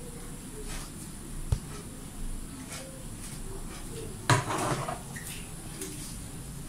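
A single dull bump about a second and a half in, then a short clatter a few seconds later, over quiet room noise.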